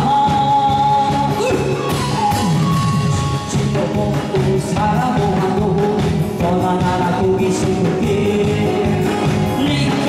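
A singer singing a song over instrumental accompaniment with a steady beat, holding long wavering notes.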